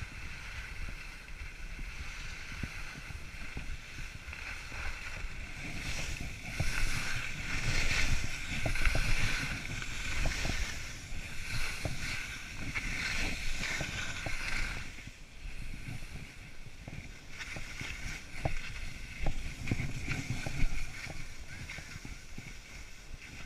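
Skis scraping and swishing over snow on a downhill run, louder in the middle stretch, with wind rumbling on the microphone.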